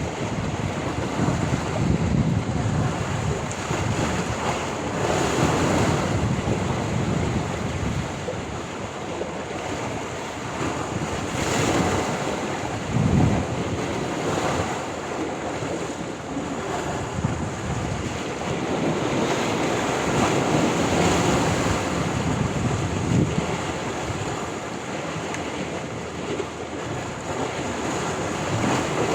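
Sea waves washing and breaking on the shore in a continuous rush that swells every few seconds, with wind buffeting the microphone.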